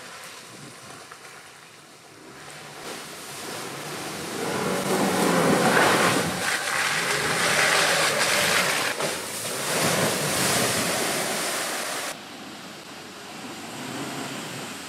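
Land Rover Defender driving off-road with a loud rushing noise that builds about four seconds in and drops off sharply about twelve seconds in.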